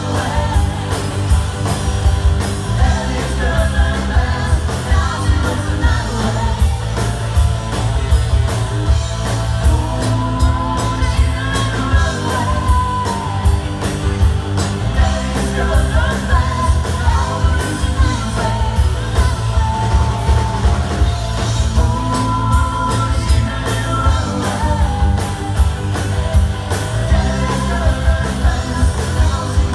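Live rock band playing with a lead singer: a steady drum beat, heavy bass and a wavering sung vocal line over the band.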